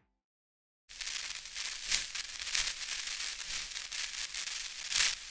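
Crackling static hiss, the noise of an old film or TV picture, used as a sound effect under a logo card. It cuts in suddenly after a second of silence, with sharper pops about two seconds in and again near the end.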